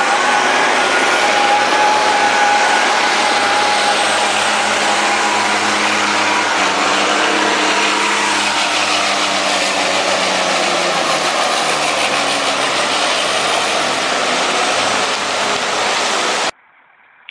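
Diesel engines of a loaded log truck and the wheeled skidder towing it, running loud and steady under load with shifting engine tones. The sound cuts off abruptly near the end.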